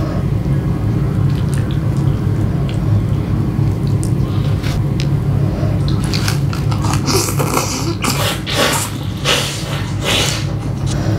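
Noodles being slurped and chewed close to the microphone, in repeated wet bursts from about halfway through, over a steady low hum. In the first half come a few light clicks of wooden chopsticks against the bowl.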